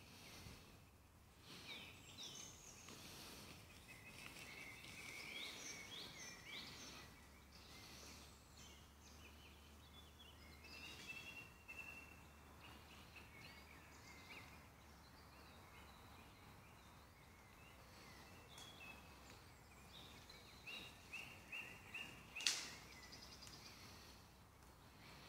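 Faint songbird calls and song in woodland, many short chirps and whistled notes over a very quiet background, with one sharp click a few seconds before the end.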